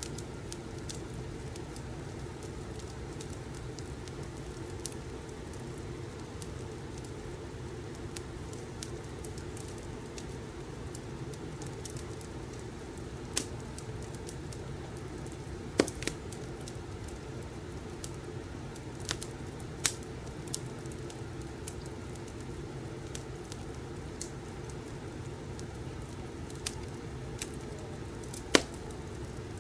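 Wood fire crackling in a fireplace: a steady low rumble of the burning fire with sharp pops and crackles at irregular intervals, the loudest about sixteen seconds in and near the end.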